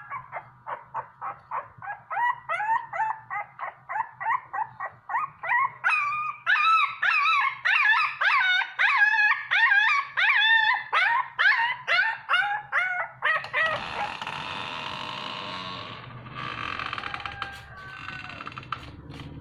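Young puppy crying in a rapid series of high-pitched whimpering yelps, about three a second, growing louder and higher about six seconds in. After about thirteen seconds the cries give way to a steadier noisy rustle.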